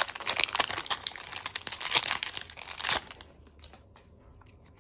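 Foil wrapper of a Pokémon booster pack crinkling and tearing as it is ripped open by hand: dense crackling for about three seconds, then it dies down to faint handling.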